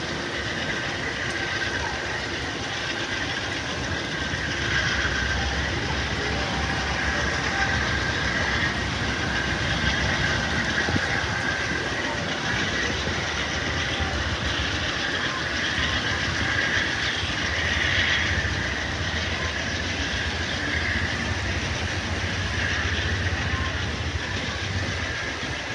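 Amtrak bilevel passenger train rolling slowly past on the tracks, a steady rumble of wheels on rail with a thin high tone running through it.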